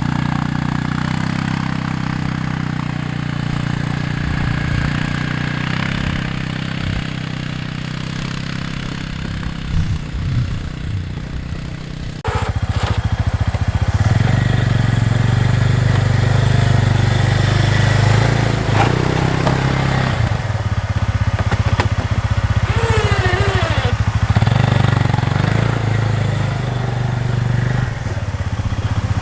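Arctic Cat ATV engine running steadily as it pushes a snow plow, becoming louder and fuller after an abrupt change about twelve seconds in.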